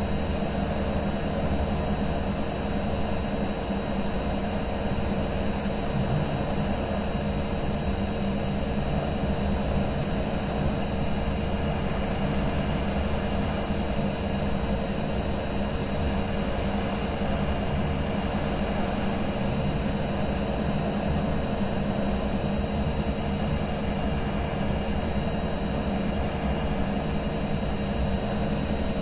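Cheap digital hot air rework station blowing steadily on its low airflow setting (3, at 380 °C): a continuous rush of air with a steady hum. It is heating a phone board's metal shield can to melt the solder under it.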